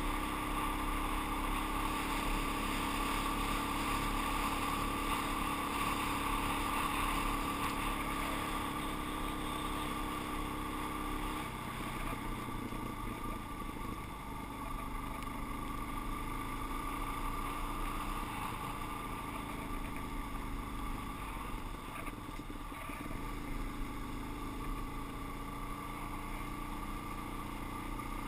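Suzuki DR-Z400's single-cylinder four-stroke engine running at a steady cruising pace on a gravel road, under a steady rush of wind and road noise. The engine note drops about eleven seconds in.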